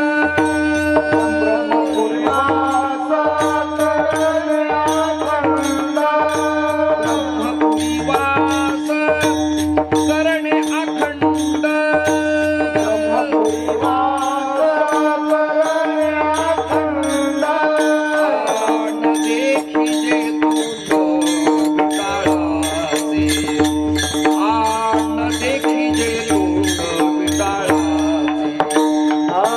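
Devotional kirtan music: voices singing an abhang over a steady drone, with deep pakhawaj drum strokes and fast clicking hand cymbals keeping the beat. The drum drops out briefly a couple of times.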